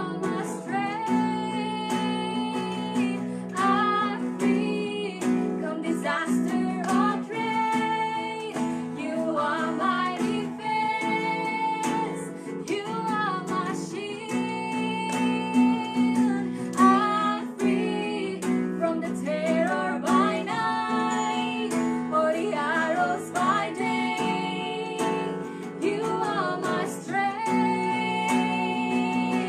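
Two women singing a worship song over a strummed acoustic guitar.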